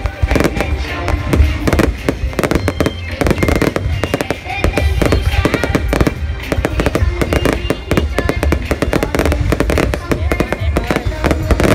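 Fireworks display: a dense, continuous run of loud bangs and crackles over background music, with voices underneath.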